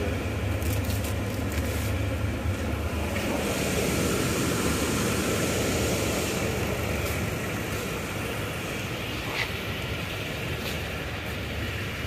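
A Toyota Tundra's 3UR-FE 5.7-litre V8 idling steadily.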